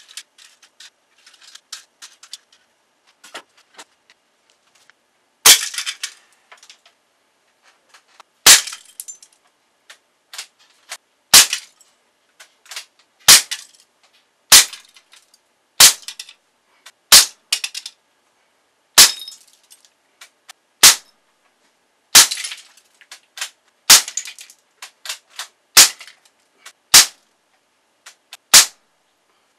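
Air gun shots, about fourteen sharp cracks spaced one to three seconds apart starting about five seconds in, each followed by a short rattle of the shot hitting plastic toy targets. Before the first shot there are only faint small ticks.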